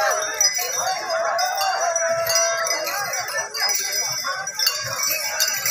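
A crowd of many overlapping voices calling out continuously, with bells ringing high above them.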